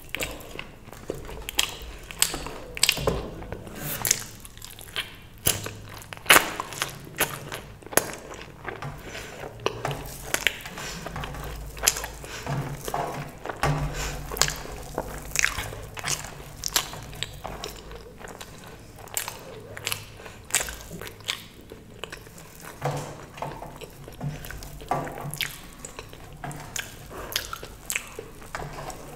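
Close-miked eating: a person chewing and biting food, with many sharp, irregular mouth clicks and crunches.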